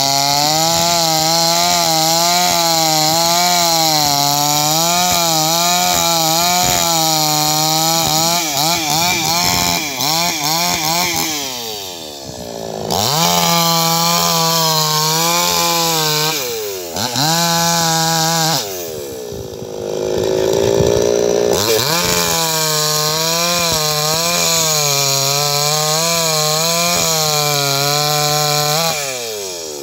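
Chainsaw running at high revs while cutting wood, its note wavering as the chain bites. Around the middle it falls off and revs back up three times in quick succession, then runs on at high speed.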